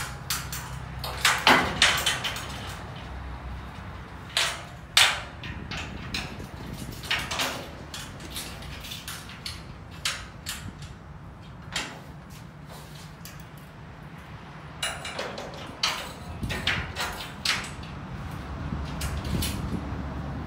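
Aluminium folding shelf panels being folded up and stowed against the wall of a box truck's cargo area: a string of irregular metal clanks, knocks and rattles, the loudest about a second and a half in and again about five seconds in, over a low steady rumble.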